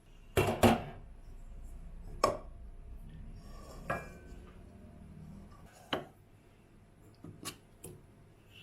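Dishes and glassware being handled: about seven separate sharp clinks and knocks, the loudest two close together about half a second in, the rest spaced a second or two apart.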